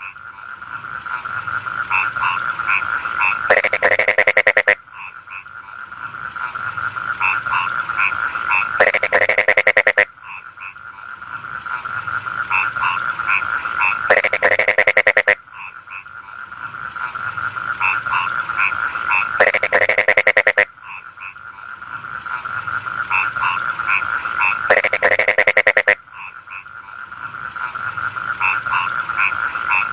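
Rice-field frogs calling in chorus: a steady trill with scattered pulsed croaks, broken about every five seconds by a loud, fast-pulsed croaking burst lasting about a second. The pattern repeats almost exactly each time, as in a looped recording.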